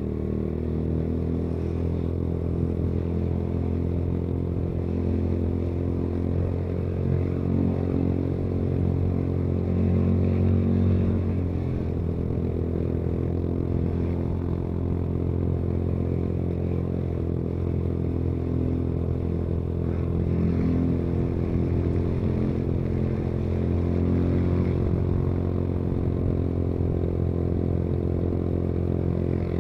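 Motorcycle engine running steadily while riding, heard from on board, its pitch shifting slightly with the throttle.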